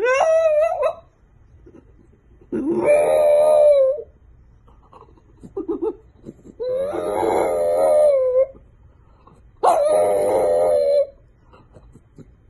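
French bulldog howling: four long, wavering howls with short pauses between, the first sliding up in pitch.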